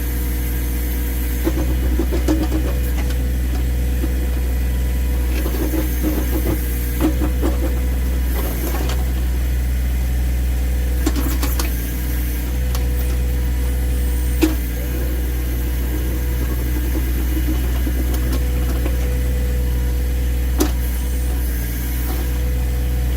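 John Deere 1023E compact tractor's three-cylinder diesel running steadily as its 260 backhoe works, with scattered clanks and scrapes of the bucket chipping at ice a few inches thick. Two sharper knocks stand out, one a little past halfway and one near the end.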